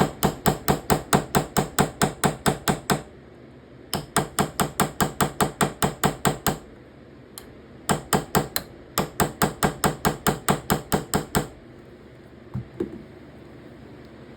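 Ball peen hammer tapping quickly on a folding knife's handle pins, about five light strikes a second, peening the pins over to set them. It comes in four runs with short pauses between and ends with two more taps near the end.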